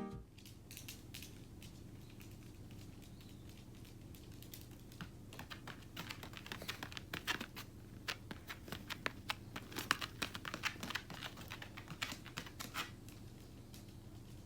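Typing on a computer keyboard: irregular key clicks starting about five seconds in and stopping shortly before the end, over a faint steady low hum.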